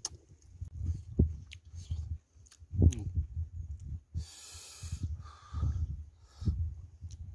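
Close-miked eating sounds: chewing, lip smacks and finger licking, with short clicks and soft thumps. A sharp hissing breath comes about four seconds in.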